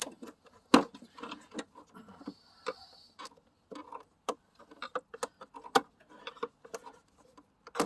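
The rubber air intake tube of a 1998 Chevy S10 being worked loose by hand and pushed off its fitting, giving irregular clicks, knocks and rubbing. There is a sharp knock under a second in and another near the end.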